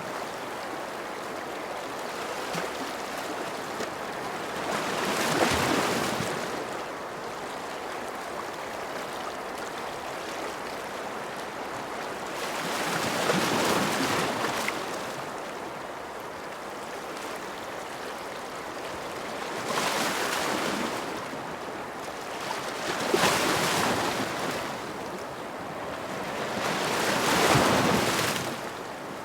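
Ocean surf: waves washing in over a steady hiss, surging about five times, each swell building and fading over a couple of seconds.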